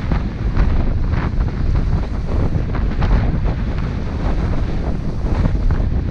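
Gale-force wind buffeting the microphone in irregular gusts, a heavy rumble with crackling.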